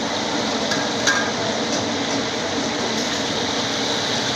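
Meat frying on a large flat iron griddle (tawa), a steady sizzling hiss from the hot oil and steam, with a few sharp metal clinks about a second in and again near three seconds.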